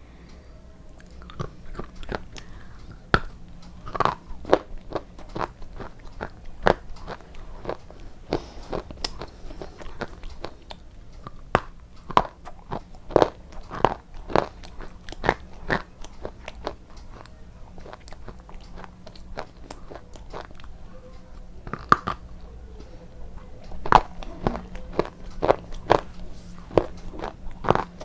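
Close-up eating of a White KitKat bar: crisp wafer biscuit crunching in repeated bites and chews, in irregular runs of sharp crackles with a few quieter pauses.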